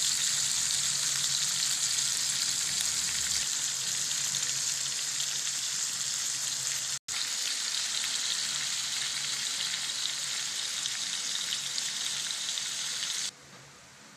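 Hot oil sizzling steadily in a wok as crabs, then fried jack fish and potato pieces, sauté in it. The sizzle breaks off for an instant about halfway through and cuts off suddenly near the end.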